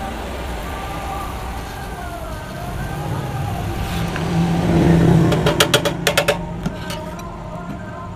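A motor vehicle engine running, swelling in level about four to five seconds in. A quick run of about eight sharp knocks follows over about a second.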